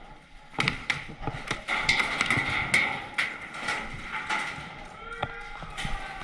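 Paintball gunfire: irregular sharp cracks of paintball markers firing and balls smacking on hard surfaces, several a second at times.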